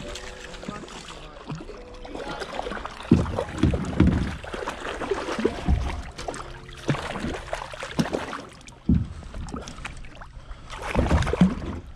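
Paddling a plastic kayak: paddle strokes in the water, with a series of sharp thumps from the paddle and hull every second or so.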